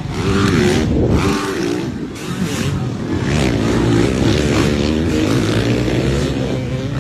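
Motocross dirt bike engines revving hard, their pitch repeatedly climbing and dropping with throttle and gear changes as the bikes race past.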